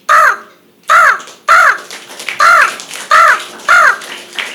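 A person imitating a crow with the voice: six harsh caws in a row, each arching up and down in pitch.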